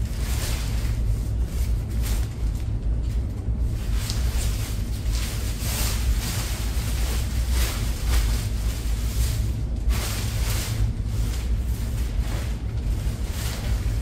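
A thin fabric bike cover rustling and crinkling in irregular bursts as it is pulled and tugged over a bicycle, over a steady low rumble.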